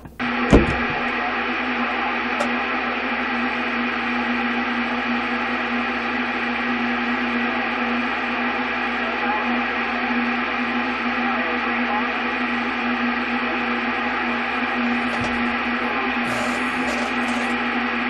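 CB radio speaker putting out a keyed carrier with no voice on it: a steady hiss with a constant low hum, which comes on abruptly with a click.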